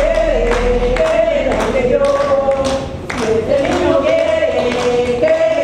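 A group of women singing a song together, with steady hand clapping keeping the beat.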